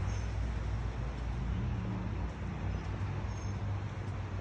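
Steady low engine drone from motor vehicles riding back and forth, its pitch rising and falling briefly around the middle.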